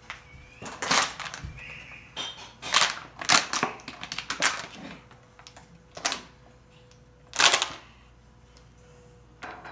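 An empty plastic water bottle being squeezed and crinkled in short crackling bursts, six or so clusters spread through, the loudest near the end.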